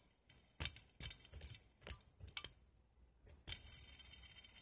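Fingers flicking a fidget spinner built from LEGO bricks, a series of sharp plastic clicks about half a second apart, then a faint steady sound as it spins.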